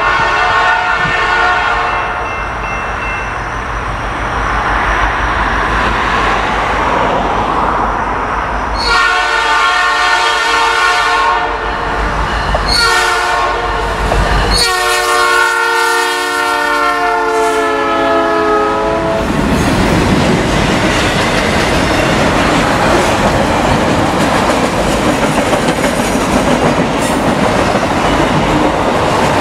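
Nathan P3 air horn on a Norfolk Southern EMD SD60E locomotive sounding a grade-crossing warning of long blasts and one short blast as the train approaches. The last long blast drops in pitch as the locomotive passes. Then the locomotives and freight cars rumble by with the clickety-clack of wheels over the rail joints.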